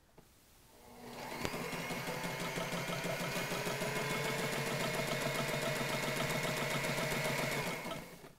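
Sailrite Ultrafeed walking-foot sewing machine stitching two layers of thin muslin. It winds up about a second in, runs steadily with a rapid, even needle ticking, and stops near the end.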